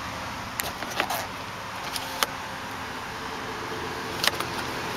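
Light plastic clicks and knocks from a 2005 VW Passat's interior trim being handled: a few single clicks in the first couple of seconds, then a quick cluster of clicks about four seconds in as the sun visor's vanity mirror cover is worked open.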